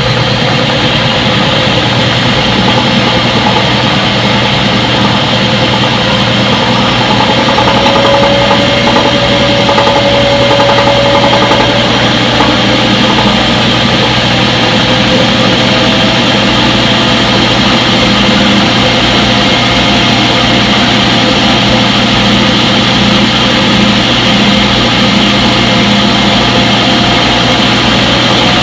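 Front-load washing machine running its spin cycle: a steady loud hum with a motor whine that drifts slightly in pitch.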